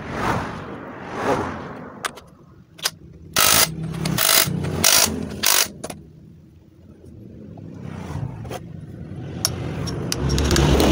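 Cordless brushless impact wrench fired in about five short, loud bursts in the middle, driving bolts during differential reassembly. Road traffic swells and fades before and after.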